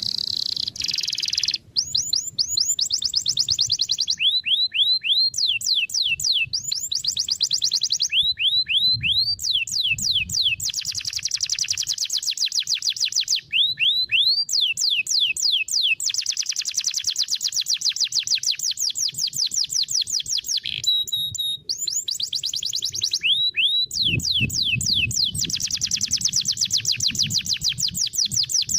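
Domestic canary singing continuously. Its song is long runs of fast, evenly repeated rising notes, and it switches to a new repeated phrase every few seconds.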